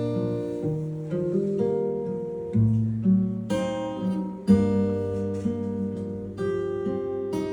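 Solo acoustic guitar playing a slow intro, chords plucked note by note and left to ring, with a low bass note at each chord change.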